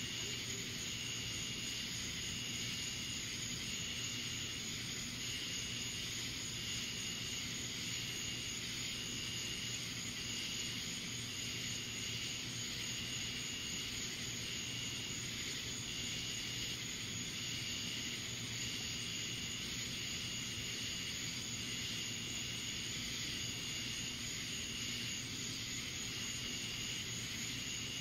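Summer night insect chorus: a steady high hiss of insects, with one insect calling in short, even pulses about every second and a half. A low steady hum lies underneath; no thunder is heard.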